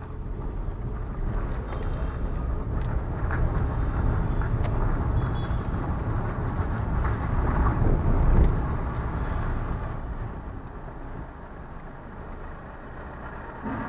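Vehicle driving along a road: a steady low rumble of engine and road noise that swells to its loudest about eight seconds in, then eases off.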